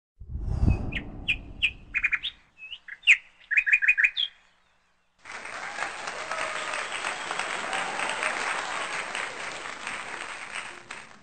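Birds chirping in short high calls, some in quick runs of three or four, over a low rumble at the very start. After a brief gap about five seconds in, a dense, steady crackling hiss takes over.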